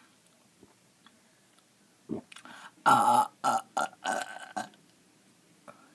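A person's deliberate long burp, brought up by drinking pop and swallowing air. A short lead-in about two seconds in, then a loud belch from about three seconds in that breaks into four or five pulses and stops just short of five seconds in.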